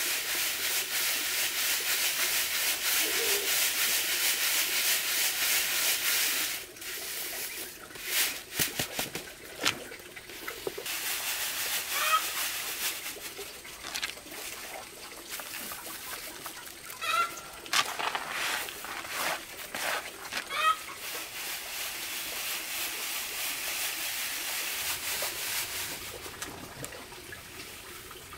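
Dry grain falling in a steady stream from a woven bamboo tray into a plastic basin for about six seconds, then rustling and pattering as it is shaken in a round sieve. A chicken clucks a few times in the middle.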